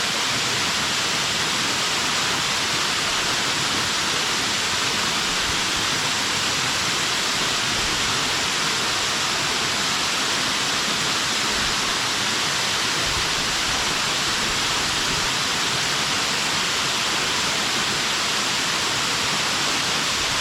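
Water pouring over a stream check dam, a steady unbroken rush of falling water.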